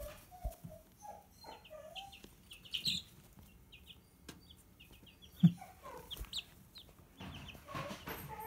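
Several young feathered chicks peeping, with many short high peeps and softer, lower trilling calls in between. A single short low thump about five and a half seconds in is the loudest sound.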